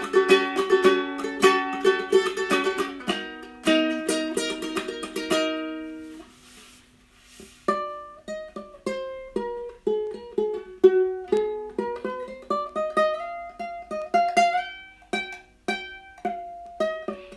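Hricane 26-inch tenor ukulele being played: quick strummed chords for about six seconds, a brief pause, then single plucked notes in a melody that climbs in pitch.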